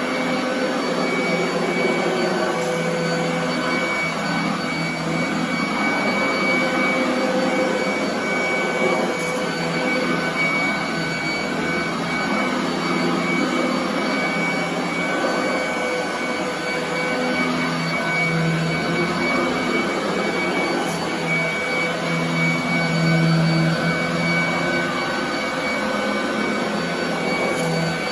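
Royal commercial vacuum cleaner running steadily over carpet: a continuous rush with a steady high motor whine, over a lower hum that wavers.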